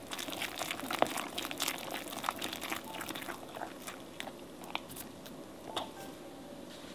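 A silicone whisk stirring thick, sticky financier batter in a glass bowl: quick wet clicking and squelching, dense for the first few seconds, then thinning to a few scattered clicks as the whisk slows and is lifted out near the end.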